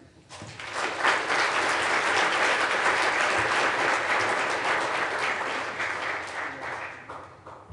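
Audience applauding: many hands clapping, building up within the first second, holding steady, then dying away near the end.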